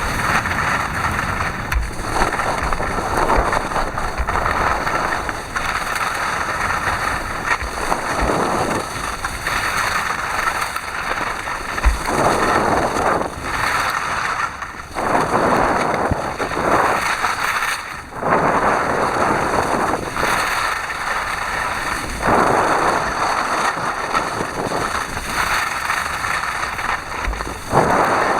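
Wind rushing over the camera's microphone during a ski descent, swelling and easing every second or two, with short low thumps of buffeting.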